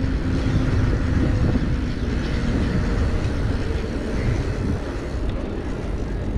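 Steady wind rush buffeting the microphone of a camera on a moving bicycle, a rumble that sits mostly low and rises and falls unevenly.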